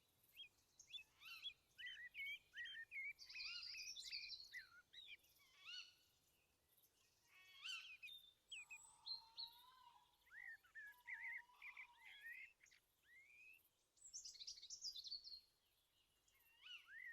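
Faint birdsong: several small birds chirping and calling in quick, rising and falling notes, scattered throughout with brief gaps.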